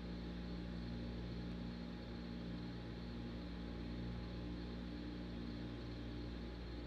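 Steady low hum of launch pad equipment with a faint even hiss, picked up by the pad microphone while the Falcon 9 vents vapour during propellant loading.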